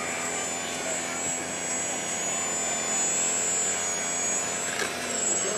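Electric motor and propeller of a model aerobatic plane hovering nose-up in a prop hang: a steady high whine whose pitch dips and comes back a few times as the throttle is worked to hold the hover, over a rushing propeller noise.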